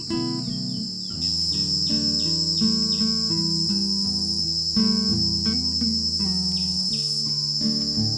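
A steady high-pitched insect drone, louder from about a second in, over background music of plucked string notes.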